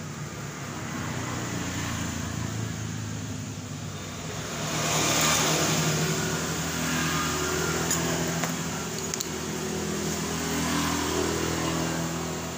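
An engine running steadily nearby, revved up about five seconds in and then held at a varying speed. A few light clicks are heard near the end.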